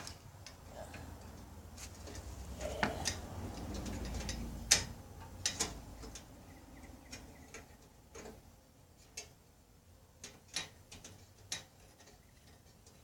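Scattered small clicks and knocks at irregular intervals, with a low rustling rumble in the first half, as the parts and wiring inside a smashed microwave are handled and pulled about.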